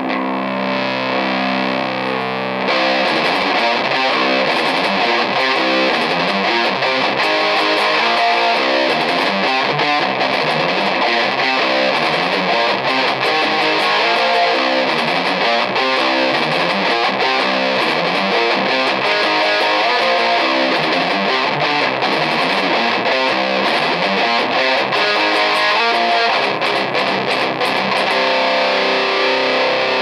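Electric guitar played with heavy distortion through a guitar amplifier: a held chord for the first couple of seconds, then busier riffing at a steady level.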